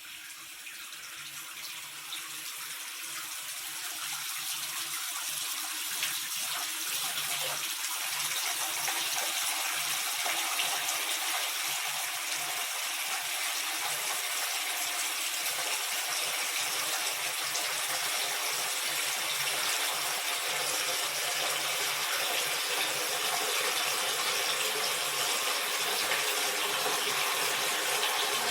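Water running from a tap into a bathtub as it fills: a steady rushing splash that builds over the first several seconds and then holds even.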